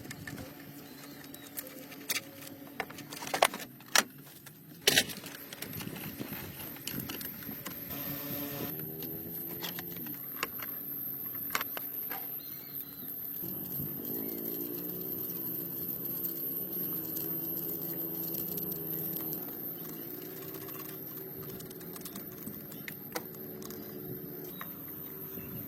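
A few sharp clicks or clinks, then a motor running with its pitch rising and falling.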